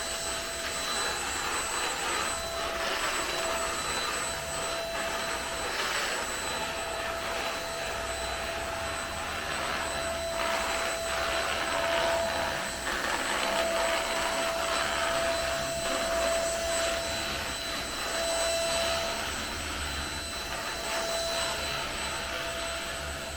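Vacuum cleaner running steadily with a high whine, its noise swelling and easing every second or two.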